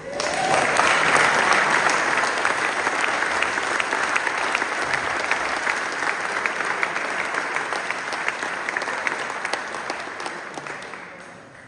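Audience clapping, starting all at once and dying away near the end.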